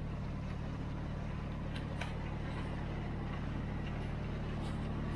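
Inboard engine of a motorized outrigger boat (bangka) running steadily under way, a constant low hum with a light hiss of water and wind over it.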